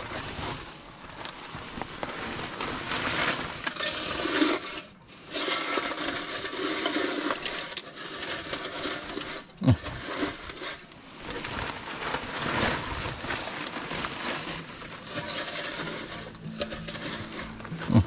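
Rustling and crinkling of a woven plastic feed sack and dry hay being handled and stuffed by hand, with a brief knock about ten seconds in.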